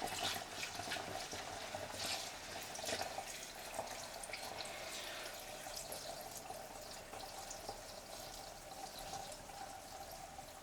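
Two-stroke premix fuel being poured from a can through a funnel into an outboard motor's fuel tank, a steady trickle with small drips.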